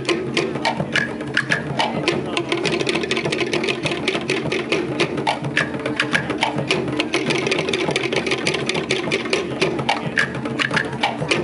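Polynesian drum ensemble playing Tahitian dance drumming: barrel drums and other percussion beaten in a fast, dense, driving rhythm of many strikes a second.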